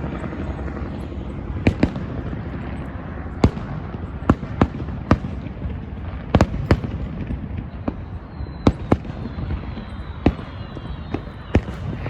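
Fireworks going off during the eclipse's totality: a dozen or so sharp bangs at irregular intervals, some in quick pairs, over a steady low background rumble.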